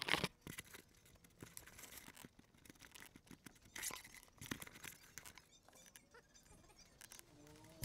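Handling noise picked up by the small camera's own microphone as it is held and carried: fingers rubbing and brushing over it, with scattered clicks and knocks. The sound is loudest at the very start and again about four seconds in.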